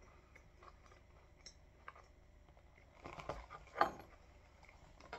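Faint chewing of crunchy oat granola clusters, with small scattered clicks. About three seconds in comes a short bout of louder handling noise as the cardboard cereal box is moved.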